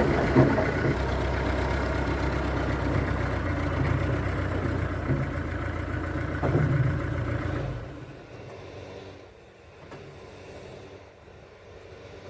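Vintage truck engine running steadily, then dropping away abruptly nearly eight seconds in, leaving a much quieter background with faint ticks.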